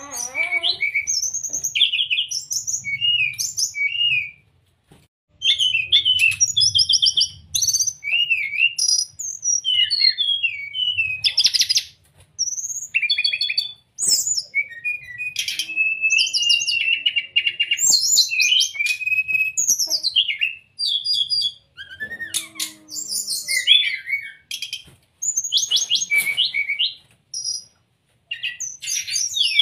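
Brown-chested jungle flycatcher singing: quick, varied phrases of high chirps, trills and short whistles, broken by brief pauses.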